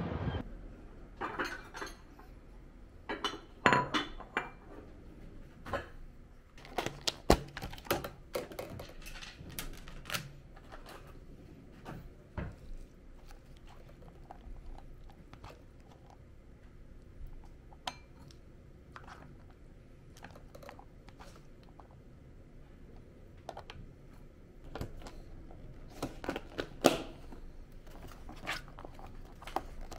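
Scattered light clatter and knocks of a wooden spoon and fork against a clear plastic food tub and a ceramic bowl as food is served out, in bursts with quieter gaps between.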